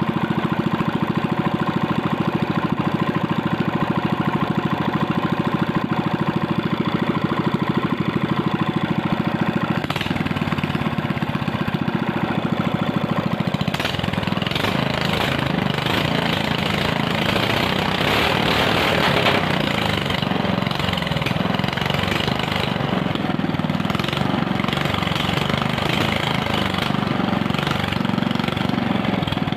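Small engine idling steadily at an even firing rhythm. About 14 seconds in a hissing, rougher sound joins the running engine and eases off again after several seconds.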